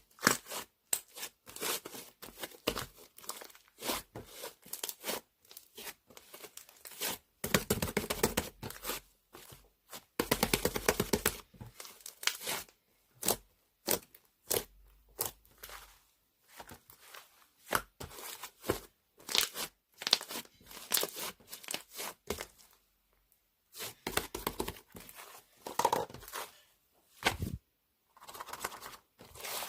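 Slime being squished, poked and stretched by hand, giving irregular crackling clicks and pops, with two denser runs of crackling about 7 and 10 seconds in.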